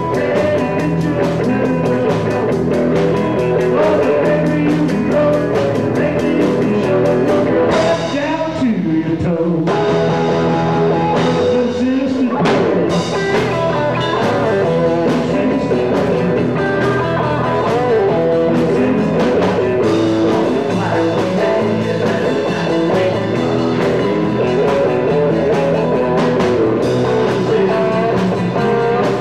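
Live rock band playing loud: electric guitars, electric bass and drum kit in a vintage rock number. The cymbals drop out for a few seconds about eight seconds in.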